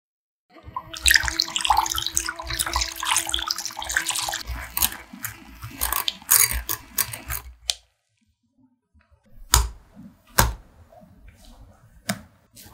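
Wire whisk beating cream in a glass bowl: a fast, continuous rattle of the wires against the glass for about seven seconds. After a short pause come two sharp knocks, then softer scraping and clicks as a spatula drops the whipped cream into the other bowl.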